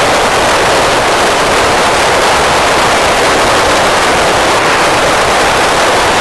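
Loud, steady hiss of open-squelch FM static from an Icom ID-5100 transceiver tuned to the PO-101 satellite's 145.900 MHz downlink. No station is transmitting through the satellite.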